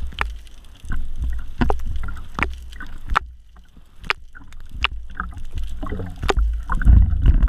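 Seawater sloshing and splashing around a camera at the sea surface, with a low rumble and many sharp clicks and pops, briefly quieter around the middle.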